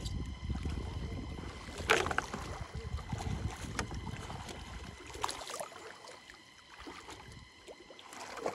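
Shallow water sloshing and splashing around legs and hands wading and groping through it, heavier in the first half, with sharper splashes about two seconds in and again about five seconds in.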